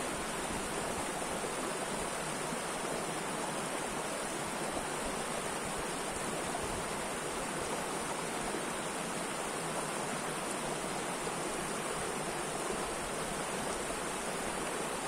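Mountain river water flowing: a steady, unbroken rush of water.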